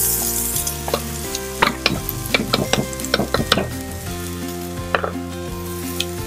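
Diced carrots tipped into a nonstick frying pan of hot oil, sizzling. A run of small sharp clicks between about one and a half and four seconds in as the pieces land in the pan.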